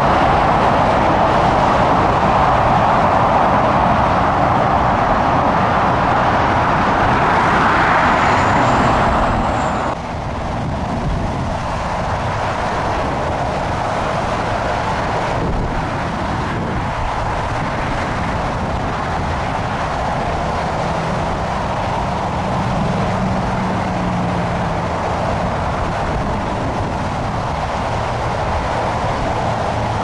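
Steady jet airliner engine noise, dropping abruptly to a quieter level about ten seconds in.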